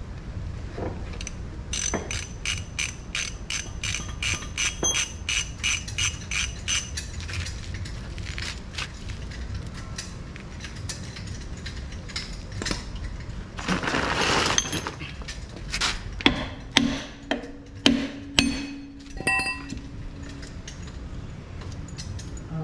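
Metal tools and brake parts being worked on a truck's drum brake. A run of sharp metallic ratchet-like clicks at about three a second comes first. Later there is a short rushing burst, then several loud separate metal clanks and clinks that ring briefly.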